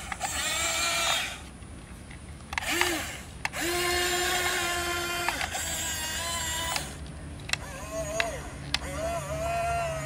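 Small electric gear motors of a Huina 1572 RC crawler crane whining in several start-stop bursts of one to two seconds each as the crane is worked by remote, the later bursts wavering in pitch.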